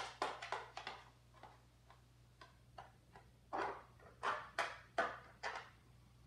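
Quick scuffs and taps of a child's hands and knees moving on a hard plank floor. They come as short, noisy strokes, a cluster in the first second and another from about three and a half seconds in, over a steady low room hum.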